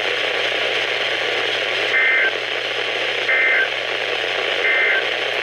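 Weather radio receiver hissing with reception static, broken by three identical short bursts of SAME digital data tones about a second apart. These are the end-of-message code that closes an Emergency Alert System broadcast.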